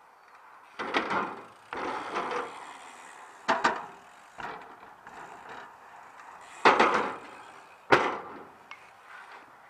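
BMX bike riding skatepark ramps: tyres rolling over the ramp surfaces, with about five sudden knocks and rattles as the wheels hit the ramp panels and land.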